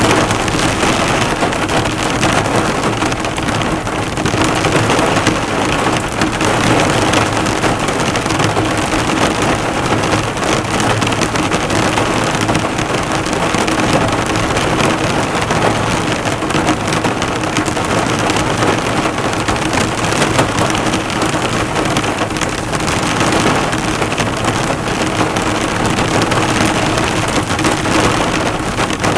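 Heavy rain drumming steadily on a car's body, the drops bouncing off the hood.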